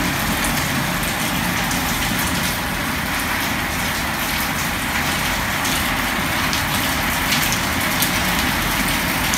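Steady, even hiss of background noise at a constant level, with a few faint ticks.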